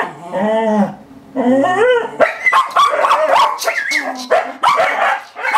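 Dogs whining and yipping in excitement at an opossum: high calls that waver up and down, one long arched whine first, then many overlapping whines with short sharp yelps.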